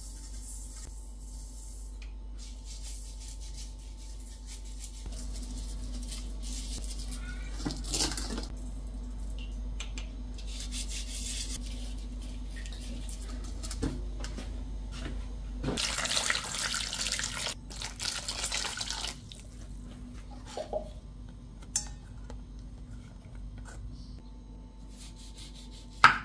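Water running in stretches into a stainless steel bowl as lemons are scrubbed with salt and rinsed, with a few light knocks against the bowl. Near the end, one sharp knock of a knife on a wooden cutting board.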